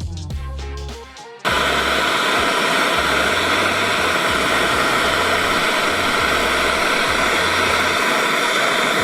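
Gas torch flame hissing steadily while melting scrap silver for casting. It starts suddenly about a second and a half in, with background music's bass line underneath.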